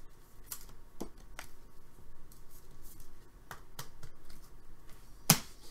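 Hands handling trading cards and their packaging: scattered light clicks and rustles, with one sharp click about five seconds in.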